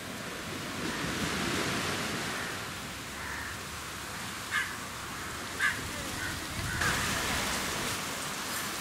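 Steady wash of sea surf on a sandy beach, with a few short bird calls scattered through it.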